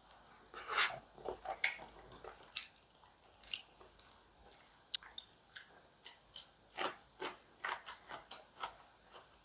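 A person eating and chewing close to the microphone: irregular short crunches and mouth clicks, first on a mouthful of scrambled egg with ham, then on a piece of raw red onion.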